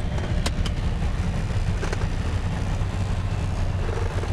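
Piper PA-28's four-cylinder piston engine running steadily at low power as the plane rolls on the ground after landing, a low drone heard inside the cabin. A few short clicks come about half a second and about two seconds in.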